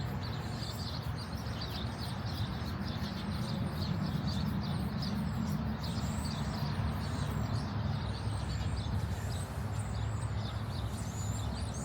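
Small birds chirping and twittering repeatedly over a steady low outdoor rumble.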